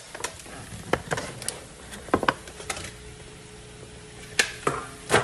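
Clear plastic spinach container crinkling and clicking as fresh baby spinach is tipped from it into a frying pan, with scattered sharp crackles over a faint steady sizzle from the hot pan.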